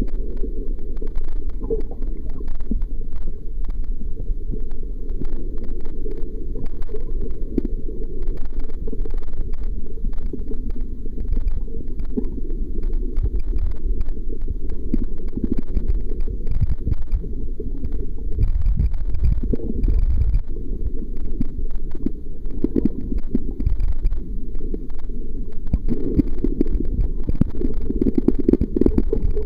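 Water moving against an underwater camera's housing: a continuous muffled low rumble that swells and fades unevenly.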